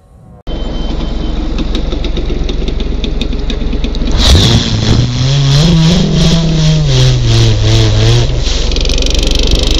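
Motorcycle engine running at idle, then revved from about four seconds in: its pitch rises over a couple of seconds, holds, and falls back down near the end.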